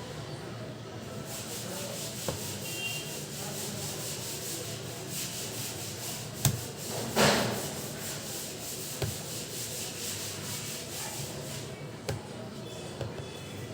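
Continuous rubbing and scraping of hands working on a laptop's case, with a few sharp clicks and one louder scrape about seven seconds in.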